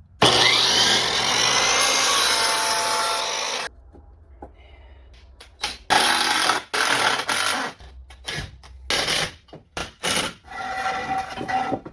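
Power tool working wood: one continuous run of about three and a half seconds, then a string of short starts and stops.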